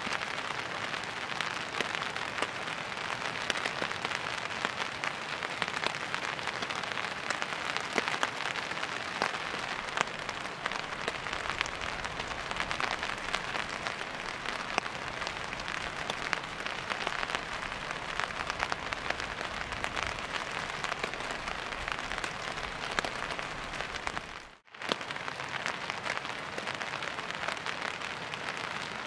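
Steady hiss of water with dense, fine pattering ticks throughout. It cuts out for a moment a few seconds before the end.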